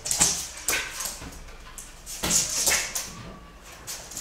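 Jack Russell terrier giving several short, sharp yips and barks while excitedly chasing a balloon.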